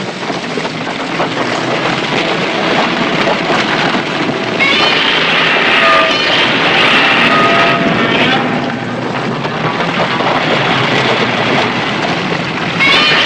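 Film sound effect of a heavy, steady rumble of shifting rock and earth as Godzilla pushes up out of the ground, with a few short high-pitched sounds over it.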